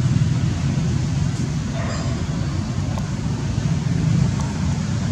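Steady low rumble of outdoor background noise, with a faint voice about two seconds in.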